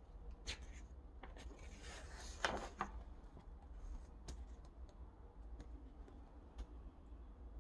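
A picture book's page being turned by hand: a faint paper rustle and swish about two and a half seconds in, with scattered light clicks of handling before and after.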